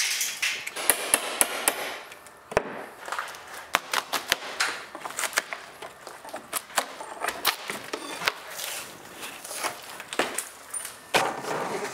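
Drywall being broken and torn away from a window opening by hand: irregular sharp cracks and knocks of gypsum board snapping, with crumbling and scraping between them.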